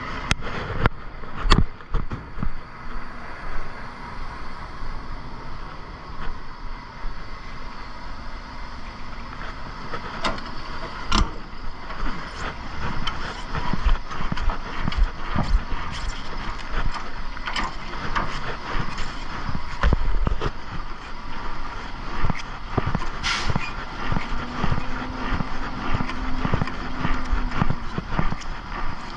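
Semi-truck running slowly, with a steady mechanical drone and frequent sharp clanks and rattles throughout.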